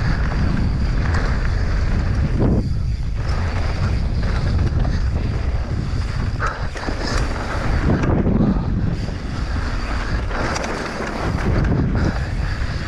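Wind rushing over the microphone of a camera on a mountain bike descending at speed, over a steady low rumble from the tyres and bike on the trail, with scattered clicks and rattles.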